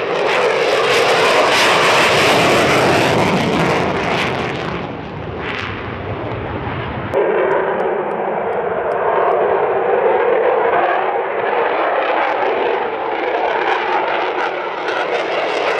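Loud, steady jet noise from F-22A Raptors' twin Pratt & Whitney F119 turbofans at takeoff power with afterburner lit, taking off and climbing away. About seven seconds in the sound changes abruptly to another jet's departure.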